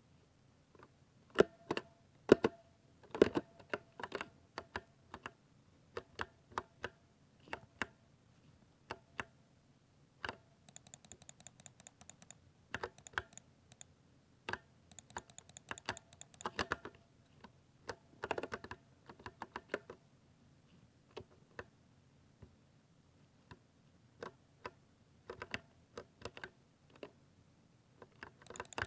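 Typing on a 60% layout mechanical keyboard: separate keystrokes with gaps between them, broken by a few short runs of fast, evenly spaced clicks.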